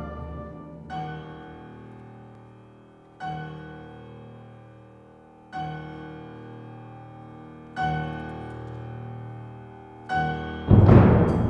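Symphony orchestra playing a series of separate held chords, a new one struck about every two seconds and each fading away. Near the end a loud full-orchestra chord with timpani breaks in.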